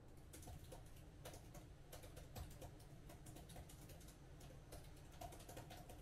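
Faint typing on a laptop keyboard: irregular, quick keystroke clicks over a low room hum.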